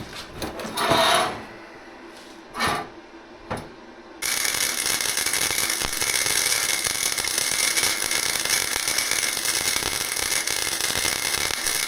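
A few light clicks and knocks, then about four seconds in a Forney Easy Weld flux-core wire-feed welder strikes its arc and runs a steady, loud crackle as a second pass is laid over a poor first bead.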